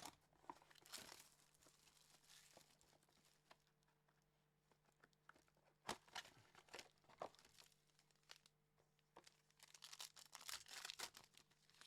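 Faint crinkling and tearing of a basketball trading-card pack wrapper and cards being handled, in scattered rustles with a few sharp clicks, busier near the end, over a faint steady low hum.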